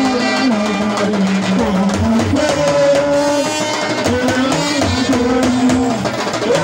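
Live traditional drum music: an hourglass talking drum beaten with a curved stick, with other hand drums. Over the drums runs a held melody that steps from note to note.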